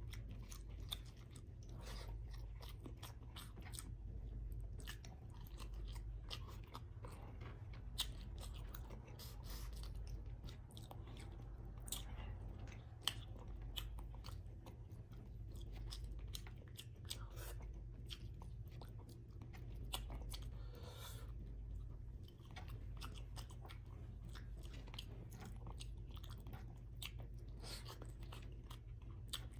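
Close-up chewing and wet mouth sounds of someone eating rice and stewed salmon with the fingers, made of many short clicks and smacks over a steady low hum.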